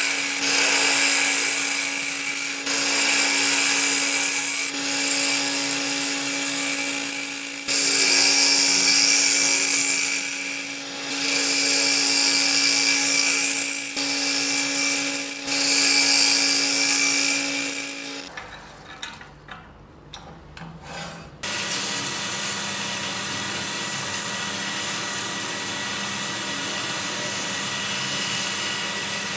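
Wood lathe turning a cup blank while a turning tool cuts inside it, the cutting hissing in passes of two to three seconds over the lathe motor's steady hum. About eighteen seconds in it drops quiet for about three seconds, then the lathe runs on with a steadier, lighter rubbing sound.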